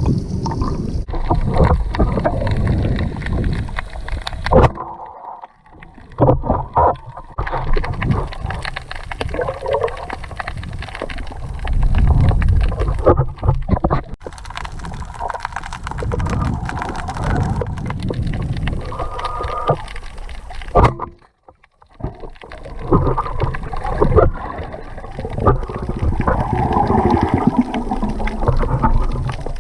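Water sloshing and gurgling with frequent knocks, uneven throughout, dropping out briefly twice.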